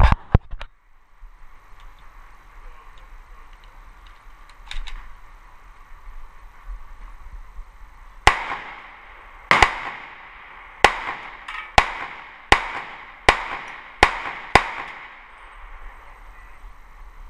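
A few sharp clicks near the start, then eight shots from a Tokarev TT-33 semi-auto pistol in 7.62x25mm, fired at a steady pace of about one every 0.8 s. Each shot is a sharp crack with a short echo.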